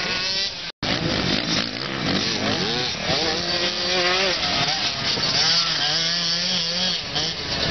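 Small off-road engines revving up and down as they ride: a dirt bike, then, after a brief dropout about a second in, ATVs (quads) with a dirt bike among them.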